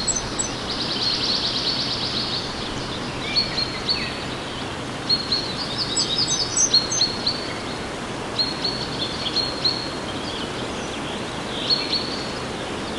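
Recorded forest ambience: birds chirping repeatedly, with a fast trill about a second in, over a steady hiss.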